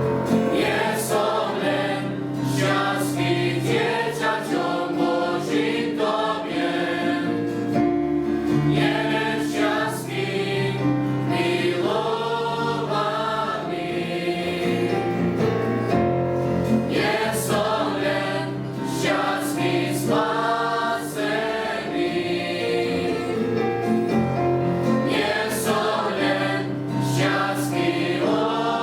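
A youth choir singing a Christian hymn in Slovak, in sustained phrases over steady instrumental accompaniment.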